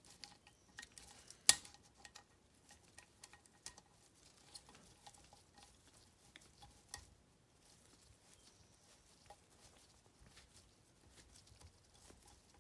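Scattered small metallic clicks and taps of hand tools and valve-train parts (spring retainer, keepers, spring compressor) being worked on a cylinder head, with one sharp click about a second and a half in and a lighter one about seven seconds in.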